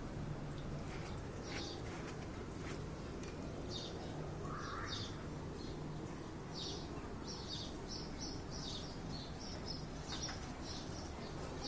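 Small birds chirping in short, repeated high calls, coming thicker in the second half, over a steady low background noise.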